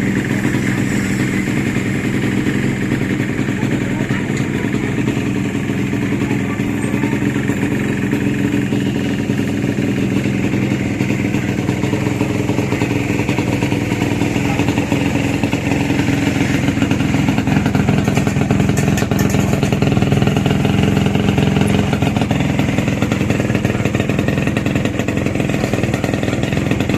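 Yamaha RX-King's 135 cc two-stroke single-cylinder engine running steadily after its rebuild, getting a little louder for a few seconds past the middle.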